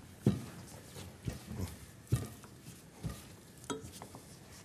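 Wooden spatulas knocking and scraping against a frying pan as flatbread dough is worked in it, about six irregular taps.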